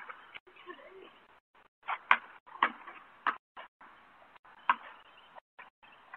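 Basketball bouncing on an asphalt driveway: a few sharp smacks starting about two seconds in, roughly half a second apart, then a longer gap before one more. Heard through a home security camera's microphone, which sounds thin.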